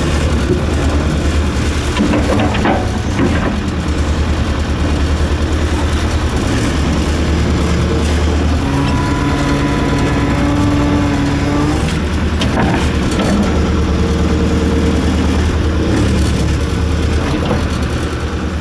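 Hitachi excavator's diesel engine running steadily under working load, heard from inside the operator's cab as the bucket digs and moves wet mud. A higher steady tone joins in for a few seconds midway, and there are a few short knocks.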